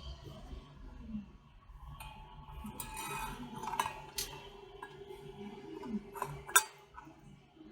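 Light metallic clinks and clicks as the saw blade and steel washers are handled and fitted on a circular saw's blade shaft, the sharpest clink near the end.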